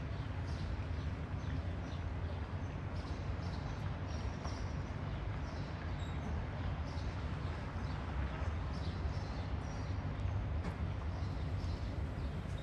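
Outdoor background: a steady low rumble with many faint, short high chirps scattered through it.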